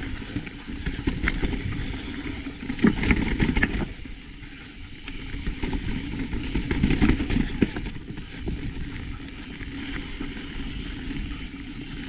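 Mountain bike riding down a rough dirt trail: a steady rumble of tyres and wind with many sharp clicks and rattles from the bike, louder in surges about three and seven seconds in.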